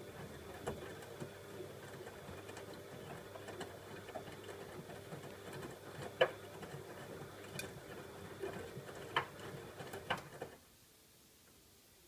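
Bosch Maxx WFO3274EX front-loading washing machine tumbling a 40 °C colour wash: the drum motor runs with a steady hum and whine, with scattered clicks and knocks from the laundry turning in the drum. The motor stops about ten and a half seconds in.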